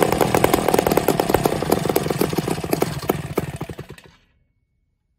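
Twin West Bend 580 five-port two-stroke kart engines running together with a fast, buzzing exhaust beat. The firing slows and fades, and both engines die out about four seconds in.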